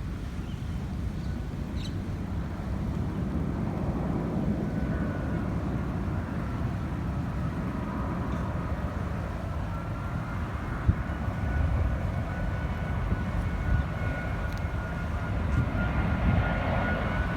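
A low-flying passenger jet passing over, its engines giving a steady rumble. A thin engine whine comes in about four seconds in and rises in pitch near the end.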